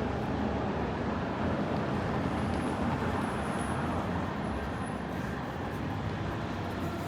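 City street traffic: a steady wash of passing vehicles and road noise, with a faint high-pitched whine for a couple of seconds in the middle.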